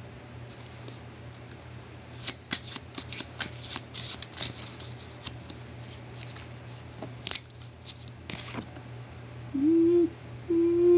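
A deck of playing cards being shuffled and handled by hand: a run of quick riffling flicks and snaps for several seconds. Near the end a voice hums two short notes, the loudest sound.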